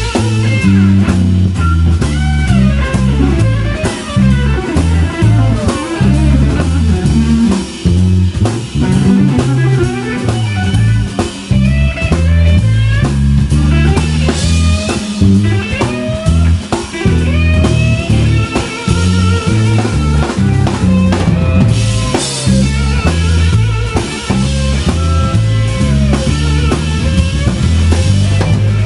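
Live blues-rock instrumental band: electric guitar playing lines with bent notes over electric bass and a drum kit.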